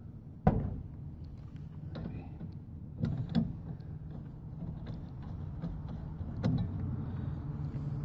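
Knocks and clicks from hands working inside a heat pump's metal compressor compartment: a sharp knock about half a second in, two lighter ones around three seconds and another past six seconds, over a steady low hum.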